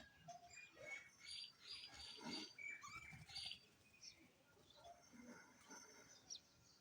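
Faint, short high-pitched animal chirps and squeaks, many of them in quick irregular succession.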